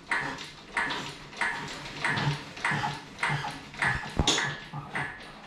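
A hammer striking metal over and over, about one and a half blows a second, each blow ringing briefly.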